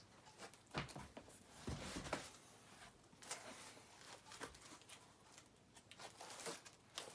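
Faint cardboard handling: a small cardboard package is lifted from a cardboard box and turned over, giving a scattering of short rustles, scrapes and soft knocks.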